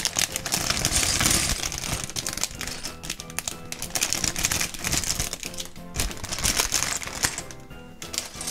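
Clear plastic bag of LEGO bricks crinkling as it is pulled open by hand, with the plastic pieces clicking against each other inside, over background music.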